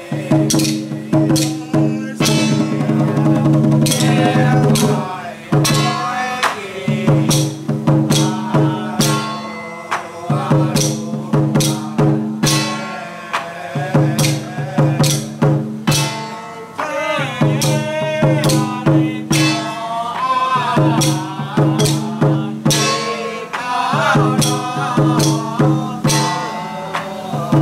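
Traditional temple ceremony music: rapid drum, wood-block and other percussion strikes over a low sustained tone, with a wavering high melody coming in and out.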